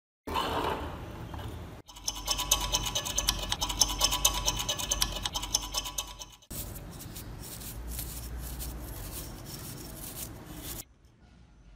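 A flat steel scraper scratches caked rust off the iron plate of an antique padlock in a dense run of quick scrapes and clicks. After an abrupt cut, a stiff brush sweeps the loosened rust off the plate with a steadier brushing hiss.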